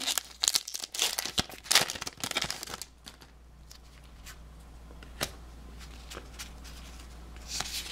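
Pokémon card booster pack wrapper being torn open and crinkled for about three seconds, then quieter with a few faint clicks of handling.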